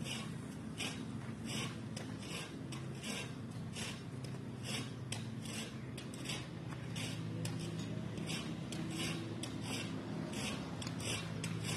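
Hand-scrubbing of a wet, soapy car body with a sponge: short rasping wipe strokes, about two a second and irregular, over a steady low hum.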